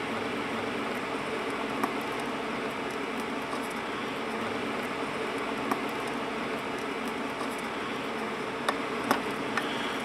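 Steady room hum, with a few faint clicks and scratches of a fingernail picking at a paper label stuck on a circuit-board chip, a small cluster of them near the end.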